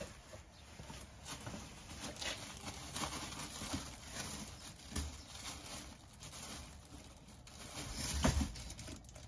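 Rustling and handling of plastic-bagged clothing in cardboard boxes on shelving, with irregular crackles and light knocks, and a louder rustle about eight seconds in.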